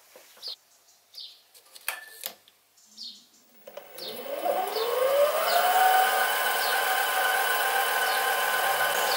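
Sieg SC3 mini lathe starting up: a few clicks, then about four seconds in the motor and spindle start with a whine that rises in pitch as it comes up to speed, then runs steadily.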